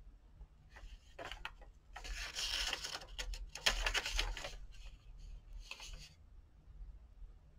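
Aged paper pages of a poetry album from around 1940 being turned by hand, rustling in a few bursts, the loudest between about two and four and a half seconds in, with a last short rustle near the end.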